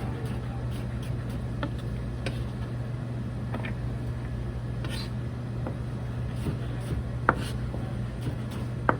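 Knife cutting vegetables on a cutting board: scattered, irregular knocks, with two sharper ones near the end.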